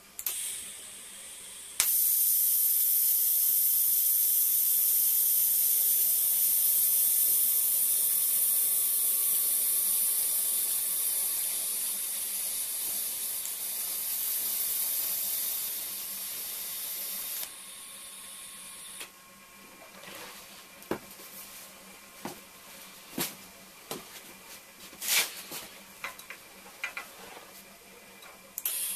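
TIG welding arc on thin-wall stainless steel tube: after a brief hiss, the arc strikes about two seconds in and runs as a steady high hiss until a little past the middle. A quieter hiss carries on for a second or so after the arc stops, followed by scattered light clicks and taps.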